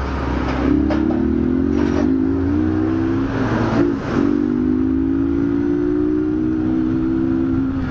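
2008 Honda CG Titan's single-cylinder four-stroke engine pulling away, revs rising with short breaks for gear changes about two and four seconds in, then holding a steady pitch at cruising speed.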